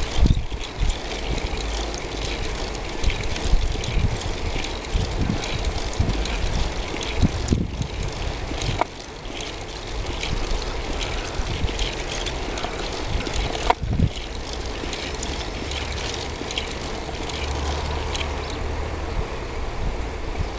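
Wind rushing over the microphone of a bicycle-mounted camera, with a low rumble from the ride along an asphalt path. Two sharp knocks, one a little before the middle and one about two-thirds through, as from bumps in the ride.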